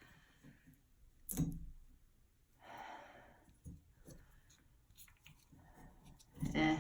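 Quiet handling sounds as old Teflon tape is picked and peeled off a shower arm's threads: a sharp click, a brief scratchy rustle, a few light ticks, and a short breathy sound near the end.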